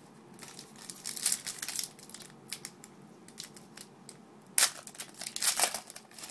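Foil wrapper of a trading card pack crinkling and tearing as it is opened, in a run of rustles about half a second in, then two sharp, louder tears near the end.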